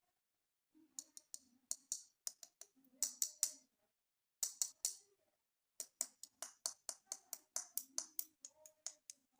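Plastic toy parts and packaging being handled: quick runs of sharp clicks and taps in three bursts, with short pauses between them.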